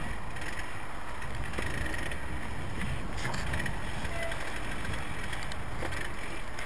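Steady low rumble with a thin hiss over it, with no distinct events.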